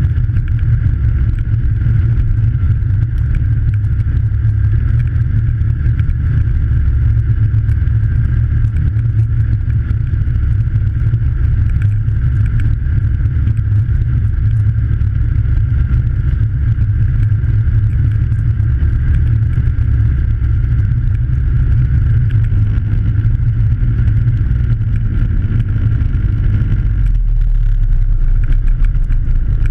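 Snowmobile engine running steadily at travel speed with a constant drone, its note changing a few seconds before the end as the machine slows.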